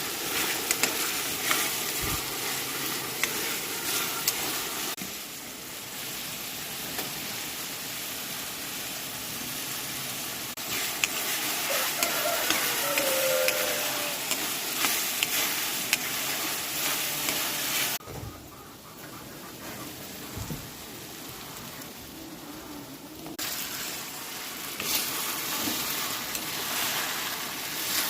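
Rice frying and sizzling in a hot pan, stirred with a spatula that clicks and scrapes against the pan. The sizzle drops in level for a few seconds in the second half.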